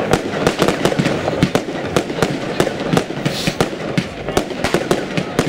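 Fireworks going off: a dense, irregular run of bangs and cracks, several a second.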